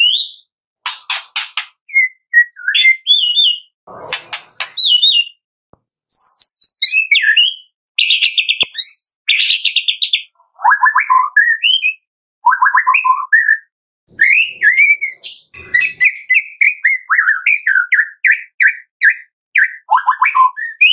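White-rumped shama singing a varied run of phrases: clear whistled notes and slurs mixed with fast, dry rattling trills, with short pauses between phrases.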